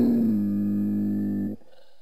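The end of a cougar's drawn-out call, held at a steady low pitch, then cut off suddenly about one and a half seconds in.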